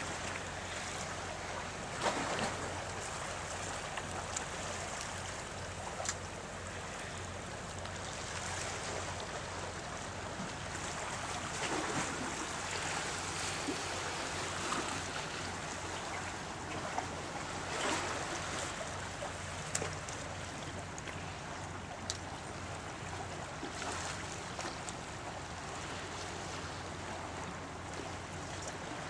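Sea water washing against the boulders of a rock jetty: a steady wash with a few brief louder surges.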